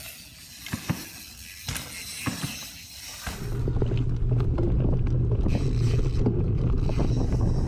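Mountain bike riding along a dirt trail. For about three seconds the tyres hiss over the ground, with scattered knocks and clicks from the bike. Then a much louder, steady low rumble suddenly takes over and carries on.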